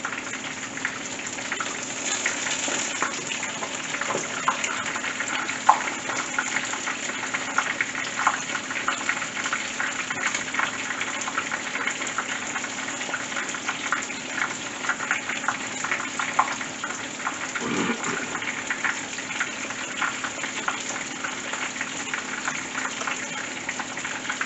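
Battered porgy deep-frying in a skillet of hot oil: steady sizzling thick with fine crackles and pops.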